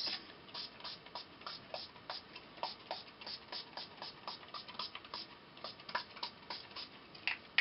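Small pump-action mist spray bottle (Tattered Angels Glimmer Mist) spritzed over and over: short, faint spray hisses, about three or four a second.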